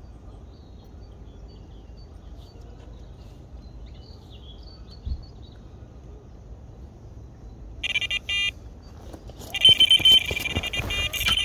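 Electronic carp bite alarm beeping, first a short burst about eight seconds in, then a fast run of beeps near the end as line is pulled through it: a fish taking the bait. A low background rumble fills the quiet part before it.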